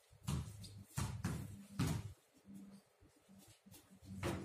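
Basketballs bouncing on a paved concrete courtyard: several irregular thumps, with a quieter gap in the middle.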